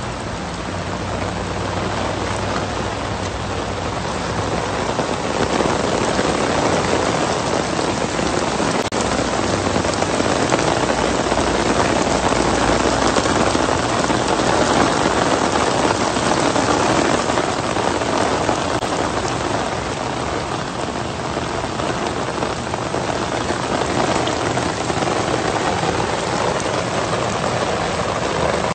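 Heavy rain pouring down onto floodwater, a loud, steady, dense splashing.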